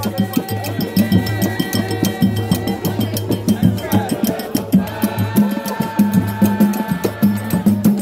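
Live samba played on hand percussion: a pandeiro and a wooden hand drum keep a quick, steady beat with a strong low pulse. A group of voices sings along over it.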